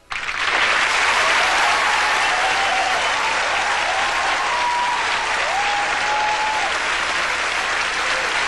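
Concert audience applauding loudly, breaking out suddenly the moment the song ends.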